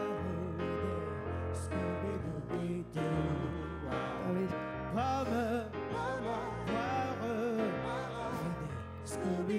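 Background music: a song, its melody sung with vibrato over a steady bass line.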